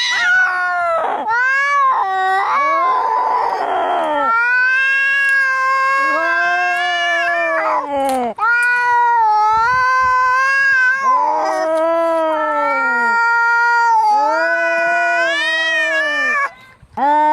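Angry cats caterwauling: long, drawn-out yowls that waver up and down in pitch, with a harsh hiss about three seconds in. These are the threat calls of cats squaring off to fight.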